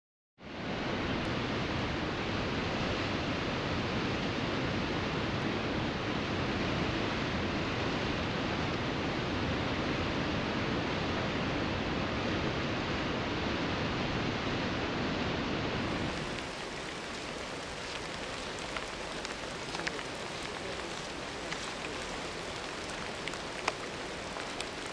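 Waterfall: a steady, even rush of falling water. About two-thirds of the way through it cuts to a quieter steady hiss with scattered small ticks.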